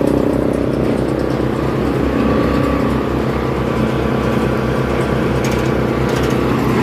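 Wood chipper machine running steadily with a low, even throb, a few sharp clicks near the end.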